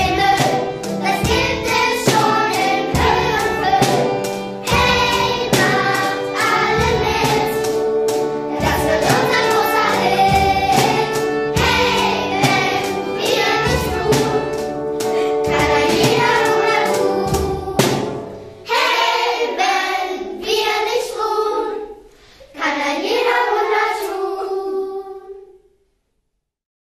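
A children's choir sings a song over an accompaniment with a steady beat. About two-thirds of the way through, the accompaniment drops out and the children's voices carry on alone. The singing ends a little before the close.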